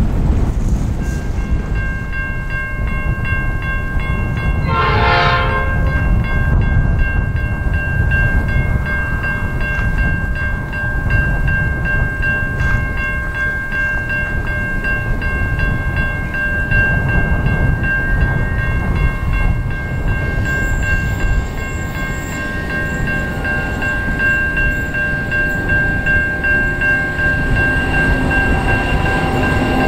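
Strong wind buffeting the microphone as a pair of 81 class diesel locomotives on an empty grain train approach from a distance, with a steady high whine from the locomotives throughout. The train's horn sounds once, briefly, about five seconds in.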